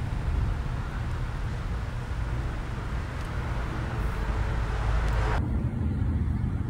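Low, rolling rumble of distant thunder heard from inside a tent, with a steady hiss over it. It cuts off abruptly about five seconds in, leaving a quieter low rumble.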